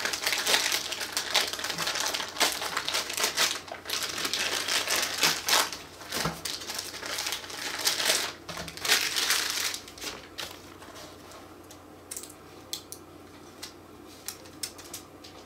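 Clear plastic bag crinkling as it is pulled off a handheld anemometer, loud and continuous for about ten seconds. It then dies down to a few faint taps as the device is set down.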